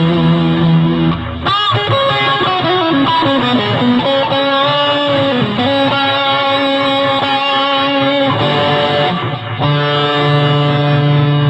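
Electric guitar played through a custom pedal combining a Big Muff–style fuzz with two modulated experimental reverbs: sustained chords washed in reverb, with wavering pitch glides about two to five seconds in. The chord changes about a second in and again near the end.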